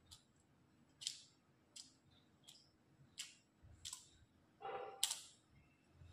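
Faint, sharp clicks, about one every second, as a fork pricks holes in rounds of cookie dough on a lined metal baking tray, with a short scrape near the end.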